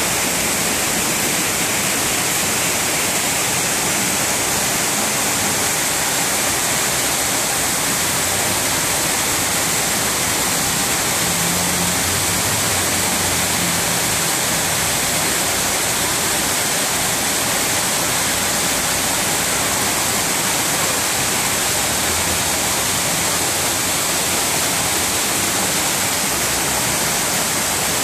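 Heavy downpour of rain falling steadily, a loud, even hiss.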